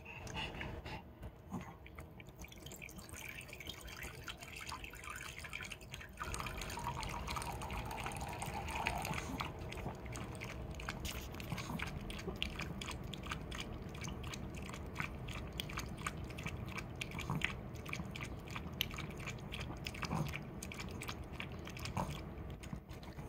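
Small white dog thirstily lapping water from a ceramic bowl: a fast, continuous run of wet tongue laps, louder from about six seconds in.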